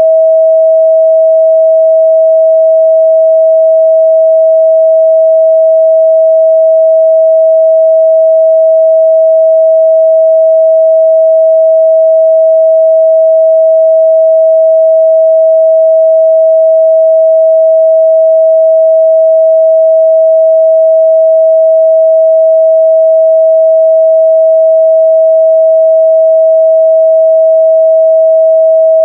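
A steady, loud 644 Hz pure sine-wave test tone, one unchanging pitch with no other sound, as used to check a speaker's or headphones' midrange response.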